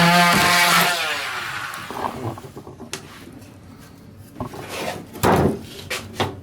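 Oscillating multi-tool cutting through a wooden countertop backsplash. Its steady buzz is switched off just under a second in and winds down with a falling pitch. A few sharp knocks and short rasping scrapes follow.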